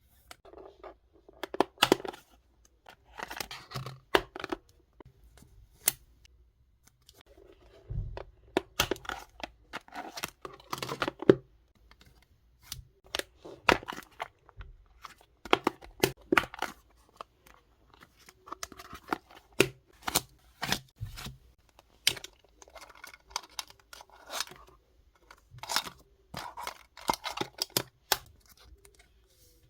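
Hands handling plastic photocard packaging: rustling, crinkling and tearing sounds in irregular bursts, broken by many sharp clicks and taps.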